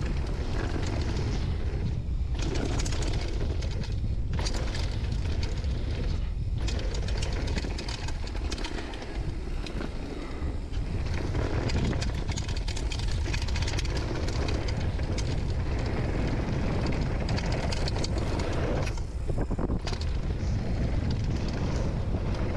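Downhill mountain bike running down a dirt and gravel trail: tyres rolling over the ground with many small rattles and clicks from the bike, under a steady low wind rumble on the microphone.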